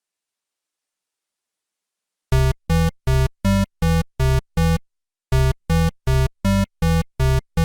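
Silence, then a short electronic synthesizer melody about two seconds in: two phrases of seven short, evenly spaced notes, about two and a half notes a second, with a brief pause between the phrases.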